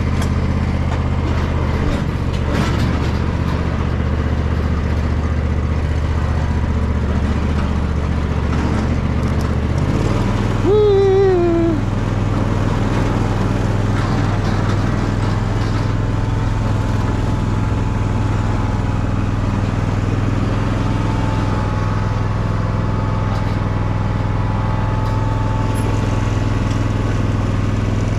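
An engine running steadily, its low hum shifting to a different pitch about ten seconds in. A short falling squeak cuts through about eleven seconds in.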